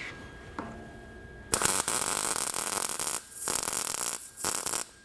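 MIG welding arc crackling on steel in three short runs with brief breaks, starting about a second and a half in.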